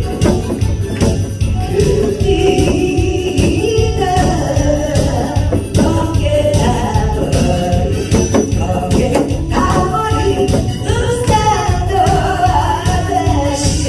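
Music: a song with a steady, driving beat and a sung melody.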